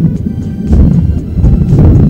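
Background music with a heavy bass register, swelling and easing in a slow pulse.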